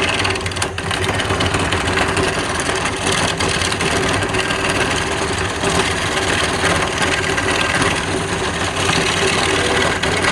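Wood lathe running with a steady motor hum under a continuous rough hiss of a tool working the spinning wood.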